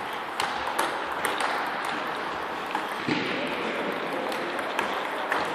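Table tennis balls clicking off bats and tables: a string of irregular sharp clicks over the steady background noise of a large sports hall.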